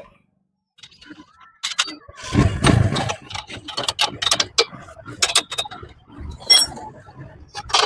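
Rapid metallic clicking and rattling of a hand tool working a bolt and nut on a motorcycle's rear brake stay strip as it is fitted. It starts about two seconds in and runs as a dense series of clicks.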